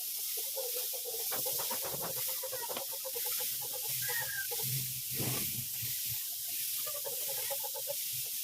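Steady hiss of a compressed-air paint spray gun, with short pitched animal calls in the background.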